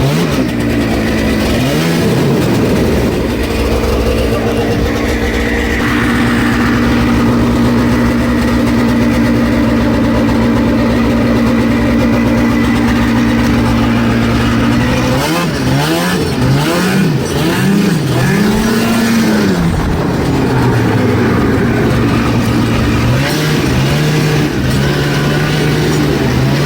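Snowmobile engine running, freshly started after sitting for about two weeks, and running well. It holds a steady speed, then is revved up and down four or five times about fifteen seconds in, and settles back to a steady run.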